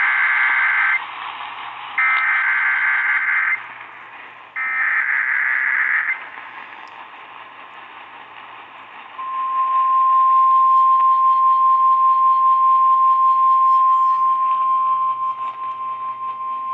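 NOAA Weather Radio emergency alert received over a radio with background static. Three bursts of warbling SAME digital header data, each about a second and a half long, open the alert. About nine seconds in, the steady single-pitch 1050 Hz warning alarm tone starts. Together they signal the start of a new alert, a severe thunderstorm warning.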